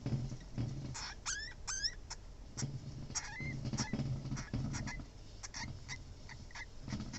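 Newborn Djungarian hamster pups squeaking: a pair of rising squeaks about a second in, then a string of short high squeaks and clicks.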